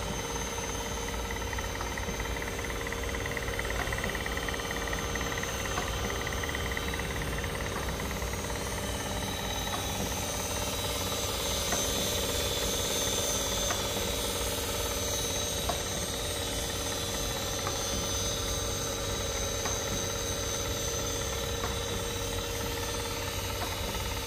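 Vollmer Liliput NS 120 circular saw sharpening machine running: a steady motor hum and whine, with a light click about every two seconds.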